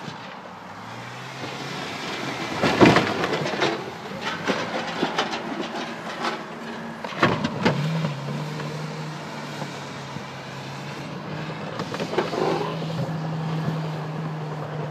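Ford Fiesta's engine running while the car clunks and bangs, with a cluster of loud knocks about three seconds in and more later. The engine's pitch steps up a little partway through.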